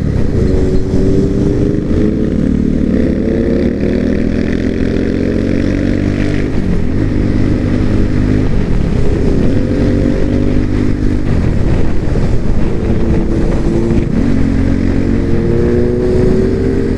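Motorcycle engine accelerating hard through the gears, heard through a microphone inside the rider's helmet. The pitch climbs in long pulls and drops back at each upshift, about three times.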